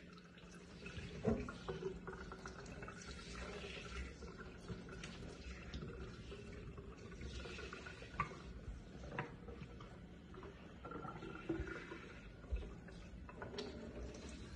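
Kitchen faucet running into a sink while a chimpanzee splashes and moves about in the water, with a few sharp splashes, the loudest about a second in.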